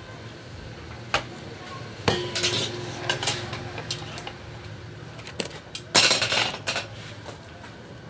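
Steel kitchen utensils clattering and clinking as they are handled, in several bursts, with one knock about two seconds in leaving a metal pot ringing briefly.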